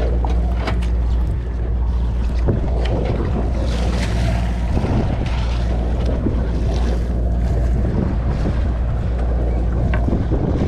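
Fishing boat under way: its engine gives a steady low drone, with wind buffeting the microphone and water rushing along the hull.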